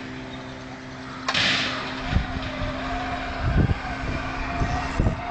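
Playground zip wire's trolley running along its steel cable, a wavering whine that starts about a second in, with wind buffeting the microphone in low thumps.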